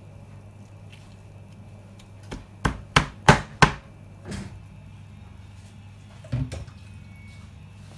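Meat cleaver chopping through cooked chicken on a plastic cutting board: a quick run of about six chops a little over two seconds in, then another pair of chops near the end.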